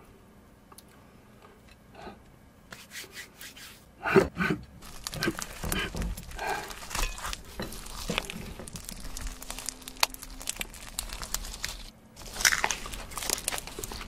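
Close-up crisp crunching and crackling as a green crunchy-coated treat is bitten and chewed, starting about three seconds in with a loud crunch at about four seconds, pausing briefly near the end, then crunching again.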